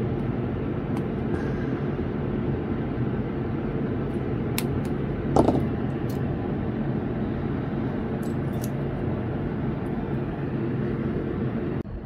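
A steady droning hum runs throughout, with a few light clicks and one short, louder clink with a falling ring about halfway through, from small pliers working at the pin headers of a circuit board.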